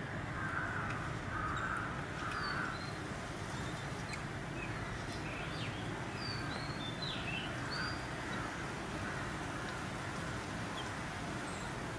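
Birds calling: three harsh calls in the first three seconds, then scattered short, high chirps and sliding squeaks, over a steady background hiss.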